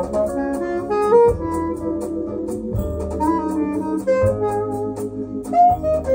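Instrumental jazz passage of a vocal song with no singing: a melody line over sustained bass notes, played back through Acoustic Research AR3 loudspeakers.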